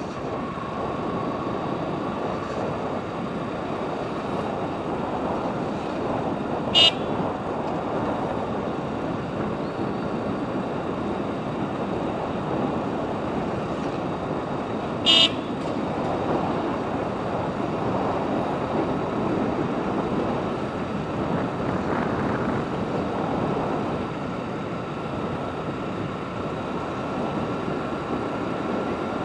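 Steady noise of a motorcycle ride on a town road, engine, tyres and wind on the microphone, with two short horn toots, one about a quarter of the way in and another about halfway.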